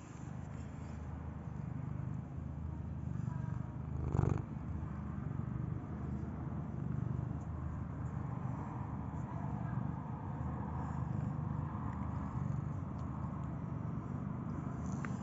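Domestic cat purring steadily, close to the microphone. About four seconds in there is a brief louder rustle, like fur brushing against it.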